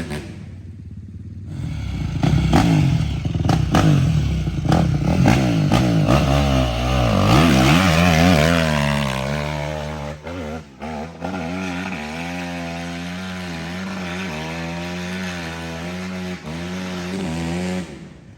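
Dirt bike engine under throttle: the revs climb and waver for several seconds, drop about nine seconds in with a couple of brief cuts, then hold a steadier note until near the end.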